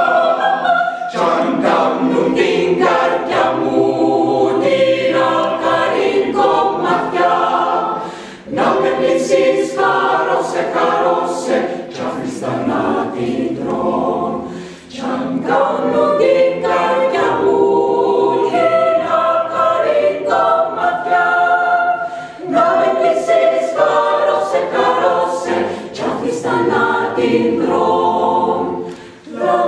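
Mixed chamber choir of men's and women's voices singing a choral arrangement of a Cypriot song in Greek, in harmony. The singing breaks briefly between phrases about 8 and 15 seconds in and again near the end.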